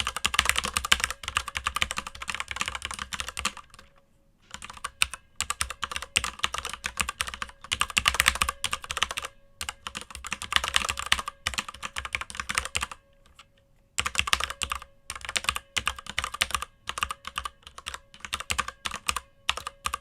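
Fast typing on a Filco Majestouch 2 mechanical keyboard with unlubricated Cherry MX Red linear switches: dense runs of keystrokes, pausing briefly about four seconds in and again about two-thirds of the way through.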